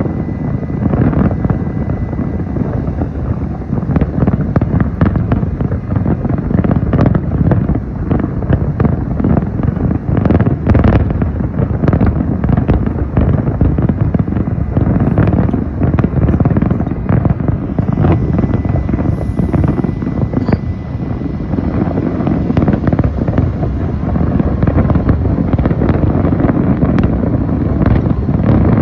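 Large fireworks display: a continuous low rumble of many shells bursting together, crossed by frequent sharp bangs and crackles.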